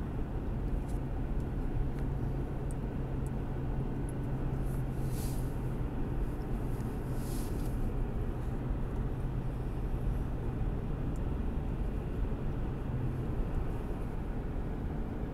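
Steady engine hum and road noise of a car driving slowly, heard from inside the cabin, with two brief hissing swells about five and seven seconds in.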